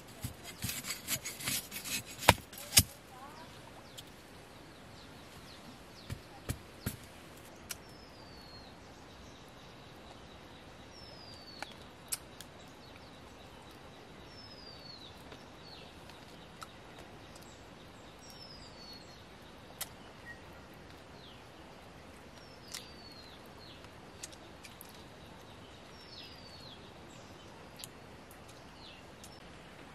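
Sharp knocks and clicks of a machete being handled in the first three seconds, the loudest two about two and a half seconds in. After that a bird's short falling whistle repeats about every three to four seconds, with a few scattered knocks in between.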